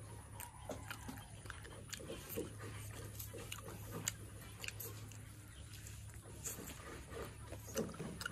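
Chewing a mouthful of crispy fried chicken thigh: irregular small crunches and mouth clicks.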